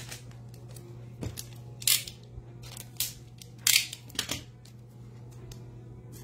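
Hands handling trading cards and a clear plastic card sleeve: about five short, sharp swishes and scrapes of card and plastic, the loudest about two seconds in and near four seconds in, over a low steady hum.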